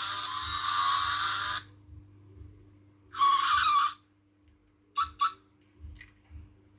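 Toy motorcycle model's electronic engine sound effect from its tiny built-in speaker, set off by pushing down the sprung rear wheel. It is high-pitched and thin, cuts off about a second and a half in, sounds again briefly with a wavering pitch about a second later, and comes back only as two short chirps near the end.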